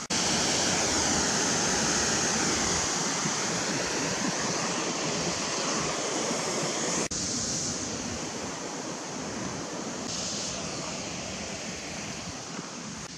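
Steady, loud rush of running water, an even hiss with a brief dropout about seven seconds in.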